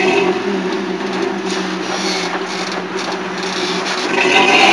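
Lifted Toyota pickup's engine running steadily at low revs as the truck crawls up the boulders, then revving up near the end.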